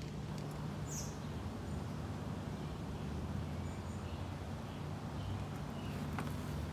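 Outdoor ambience: a steady low hum with a few faint bird chirps, and light clicks from plastic rod-holder parts being handled.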